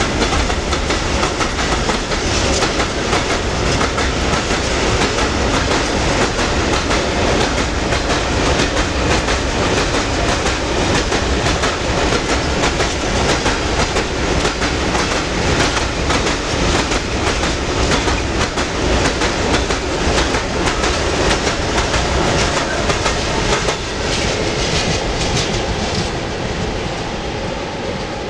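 A long freight train of tank wagons rolling past close by, with a dense, steady clatter of wheels on the track. The noise eases in steps near the end as the last wagons go by and the train moves away.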